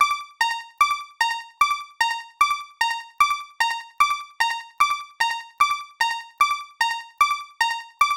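Japanese railroad crossing alarm (fumikiri) sounding its bell-like warning: about two and a half strikes a second, alternating between a higher and a lower pitch, each strike ringing briefly before the next.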